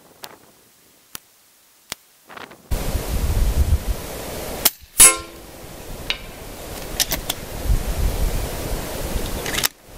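A few sharp clicks, then wind buffeting the microphone from a little under three seconds in. One loud, sharp snap stands out about five seconds in, followed by smaller clicks.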